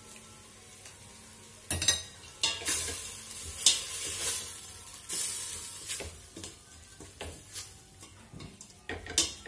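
Chopped vegetables frying in oil in a stainless steel pot, sizzling as a wooden spoon stirs and scrapes them in repeated strokes. A sharp clack comes about two seconds in.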